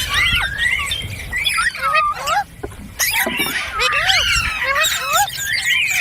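Green parrots chirping: many short, overlapping calls that swoop up and down in pitch, with a brief lull about two and a half seconds in.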